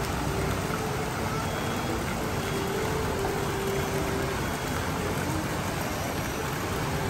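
Shopping-centre atrium ambience: a steady even hiss of distant crowd chatter and building noise, with faint far-off voices echoing in the large hall.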